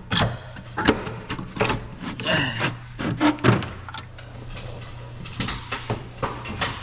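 Irregular knocks, clicks and scraping from hand tools and parts being handled in an engine bay, over a steady low hum.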